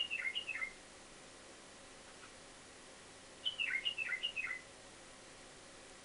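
White-eared bulbul calling: a quick run of short notes, each sliding downward. One run ends just after the start, and another of about four notes comes about three and a half seconds in.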